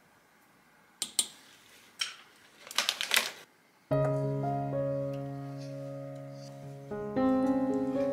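A few sharp clicks and knocks, then piano music starting about four seconds in.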